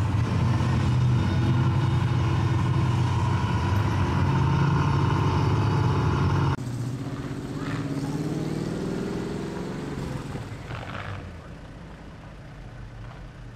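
Off-road race buggy engines running loud and steady. About six and a half seconds in, the sound drops suddenly to a quieter engine idling, its pitch rising briefly before it settles.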